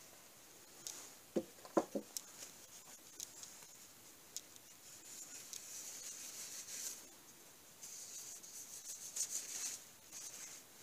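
A paper sheet being handled and rubbed by hand, making a hissy rustling, with a few light clicks and knocks about one and a half to two seconds in.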